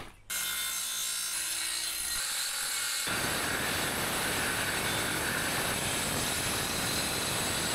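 Electric saw starting up and cutting through a sheet of old plywood along a marked line. A motor whir with a few steady tones gives way to a denser, fuller cutting noise about three seconds in.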